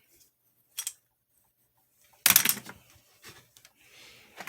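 Toy weapons being handled: a light click, then a loud short clatter a little over two seconds in, followed by a few smaller knocks and rustling.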